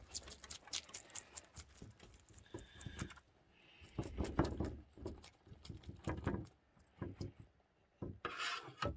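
Knife scraping the scales off a crucian carp on a cutting board: quick rasping strokes in uneven runs, with a short pause near the end.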